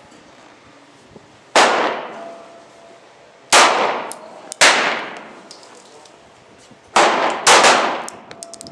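Five 9mm Glock 19 pistol shots, fired at an unhurried, uneven pace with two quick pairs, each crack trailing off in a long echo.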